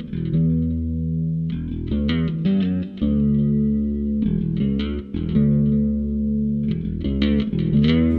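Instrumental intro music led by guitar with bass, held chords that change every second or so.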